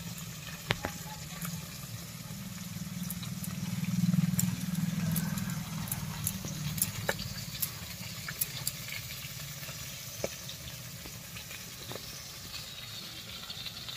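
Bottle gourd being cut into thin strips against a boti blade: irregular crisp cutting clicks. Under them runs a low steady hum that swells about four seconds in.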